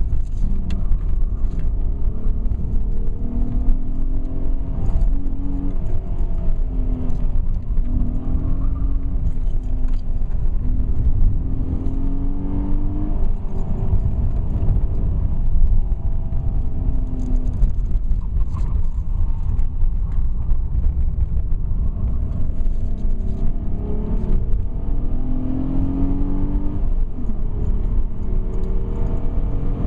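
Ford Cougar's 2.5-litre V6 engine heard from inside the cabin while the car is driven hard. Its pitch repeatedly climbs under acceleration and then drops back, over a heavy low rumble.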